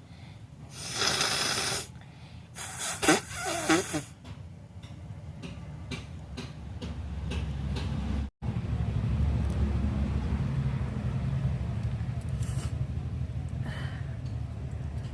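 A woman with a head cold blows a hard blast of air through her nose, then sneezes loudly with a cry in her voice about three seconds in. After that, a steady low rumble of road traffic carries on.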